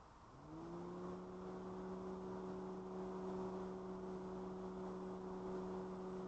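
Steady motor hum that rises in pitch as it spins up about half a second in, holds one even pitch, and winds down at the very end.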